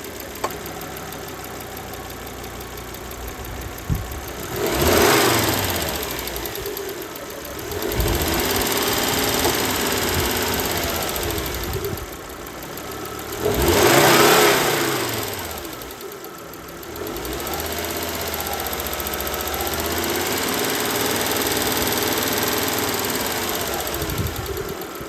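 Volvo B5244S2 2.4-litre five-cylinder petrol engine running with a ticking noise, revved up and let fall back twice, and held a little above idle in between.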